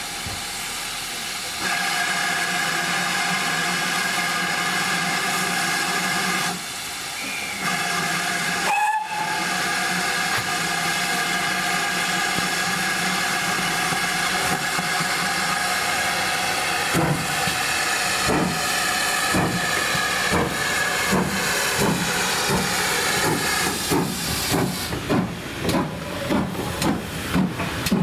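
Steam locomotive venting steam with a held whistling tone, broken briefly after about six seconds. About two-thirds of the way through it starts to pull away: its exhaust beats begin slowly and quicken as it gathers speed.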